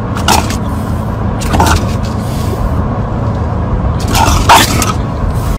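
Steady road and wind noise inside a moving car, with four short sharp sounds over it: one about a third of a second in, one at about one and a half seconds, and two close together near the end.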